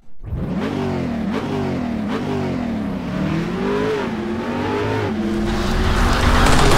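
Car engine revving in several surges, its pitch climbing and falling again, then holding higher and steadier with a rising rush of noise near the end.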